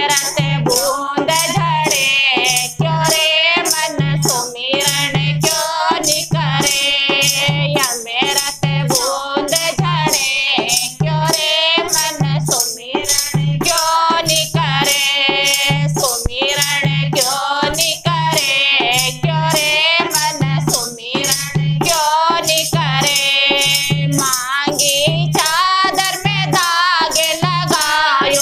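Women's voices singing a Hindi devotional bhajan, with a dholak drum keeping a steady, even beat of deep strokes and hand-held jingle clappers rattled in time with it.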